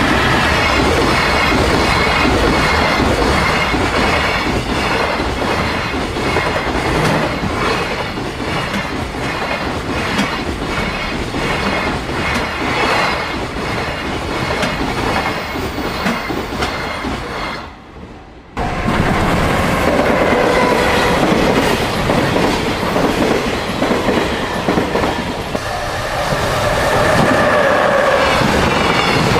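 Container freight train passing at speed, its wheels clicking steadily over the rail joints. About eighteen seconds in the sound breaks off for under a second, then the passing train carries on.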